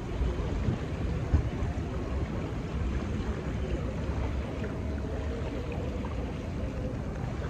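Wind buffeting the microphone, with small waves lapping at the river's edge.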